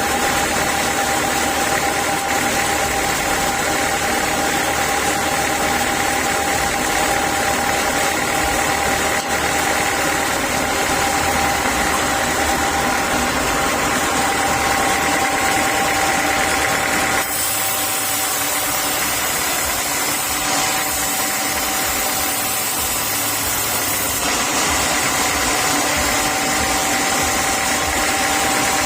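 Sawmill machinery running steadily: a motor hum with a high, steady whine over a noise haze. The sound shifts abruptly about two-thirds of the way through.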